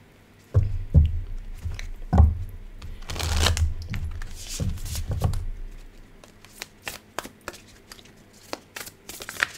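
Rustling and handling of paper reading cards: a run of dull knocks and rustles in the first half, then light scattered taps.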